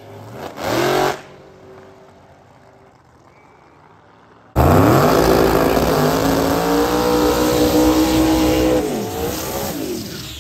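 Drag cars at full throttle: an engine's revs climb briefly and fade as the cars run away down the strip, then, after a sudden cut about four and a half seconds in, a drag car's engine is held at high revs through a smoky burnout, its pitch falling away near the end.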